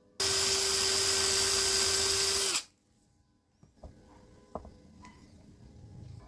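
Small high-speed electric motor running at a steady whine for about two and a half seconds, then switched off, its pitch dipping slightly as it stops.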